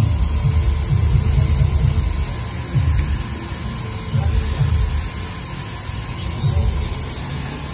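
Engraving machine's spindle motor running with a steady hum as the cutter engraves letters into a tag plate, with uneven low rumbling that comes and goes.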